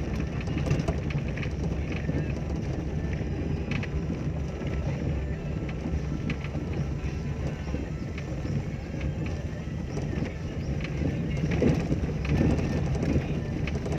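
Inside a car driving slowly along a rough dirt track: a steady low rumble of engine and tyres, with scattered knocks and rattles as it goes over the bumps.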